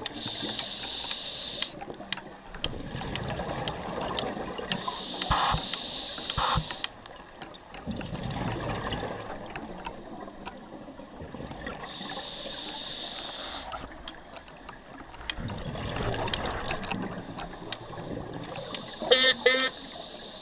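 Scuba regulator breathing heard underwater: a hissing inhale through the regulator about every five to seven seconds, each followed by a rush of exhaled bubbles, with scattered small clicks throughout. Near the end comes a quick run of short honk-like pulses.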